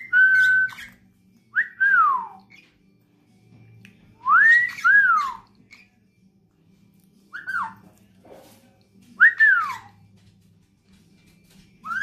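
Short whistled phrases, mostly rising then falling, every couple of seconds: a person whistling and a dusky pionus parrot mimicking the whistle back.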